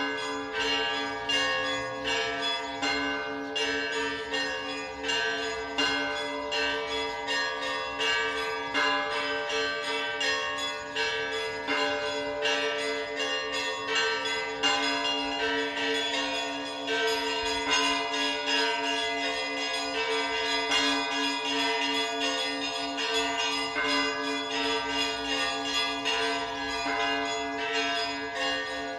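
Orthodox church bells ringing in a continuous peal: quick, busy strikes of smaller bells over the steady, lingering hum of two larger bells.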